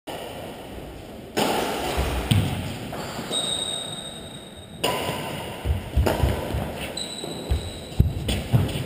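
Doubles badminton rally: rackets striking the shuttlecock and players' feet thudding and stepping on the court, a scatter of sharp knocks and thuds. Twice there is a high, steady squeal lasting about a second.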